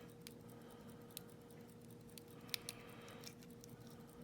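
Faint, scattered ticks of a lock pick probing the pin tumblers of a Yale Y210C/51 lock held in a deep false set, over a faint steady hum.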